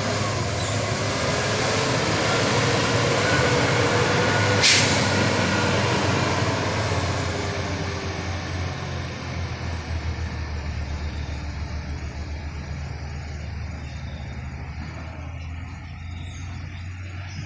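Heavy truck's diesel engine running as it passes, louder toward about five seconds in and then fading, with a short sharp hiss near the loudest point.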